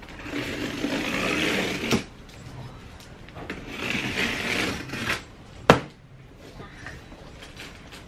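Box cutter slicing through packing tape and cardboard along the seam of a flat-pack box: two long scratchy strokes, then a single sharp knock about two-thirds of the way through as the box is opened.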